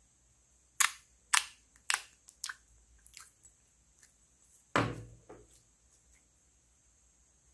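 Clear slime being worked out of its plastic container and into a glass bowl: a run of sharp clicks and pops about half a second apart, then a louder thud near five seconds in and a smaller pop after it.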